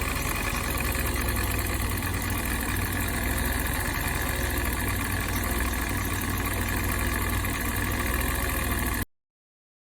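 Citroen XM engine idling steadily, with a deep, even running note; it cuts off suddenly near the end.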